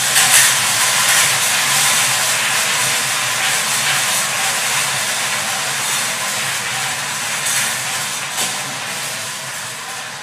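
Four hand-cranked wire lottery cages spinning together, the numbered balls inside tumbling and rattling against the wire in a dense, steady clatter that eases off slightly near the end.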